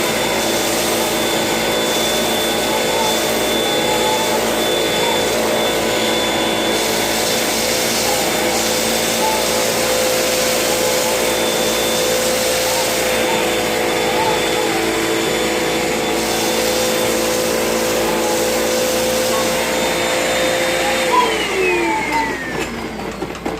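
Hoover vacuum cleaner running at a steady pitch, a motor whine over a rushing airflow. About 21 seconds in it is switched off and its whine falls in pitch as the motor spins down.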